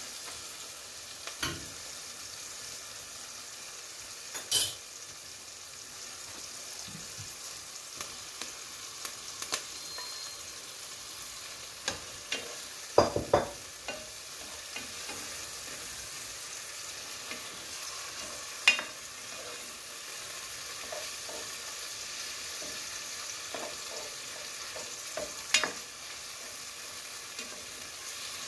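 Steady sizzle of food frying in oil, with a spoon knocking and scraping against the pot a few times, loudest about halfway through, as salt fish is stirred into sautéed vegetables.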